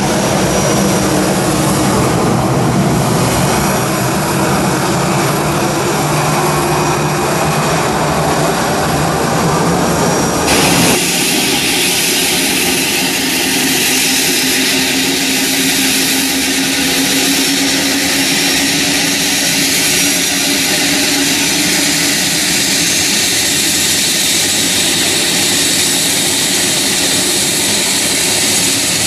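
Jet engines of a TAM Airbus A320-family airliner running steadily as it taxis. About ten seconds in the sound cuts to a helicopter, with a steady high turbine whine as its rotors turn.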